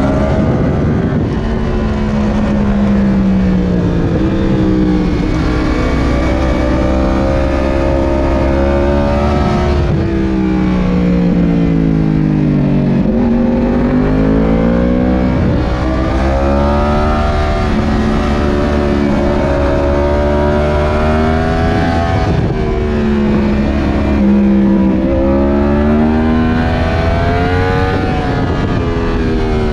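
Yamaha R1's CP4 crossplane inline-four engine under hard riding, its pitch rising with the throttle and falling again several times as the bike accelerates and slows, over a steady low rumble.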